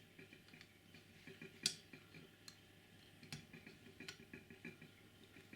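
Faint, scattered clicks and taps of small parts and tools being handled while a model locomotive's chassis is put back together, with a few sharper clicks, one under two seconds in and others a little past three and four seconds.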